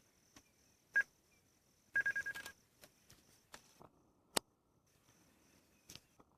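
Scattered sharp clicks with a short high beep about a second in and a quick run of beeps around two seconds in, over a faint steady high hiss.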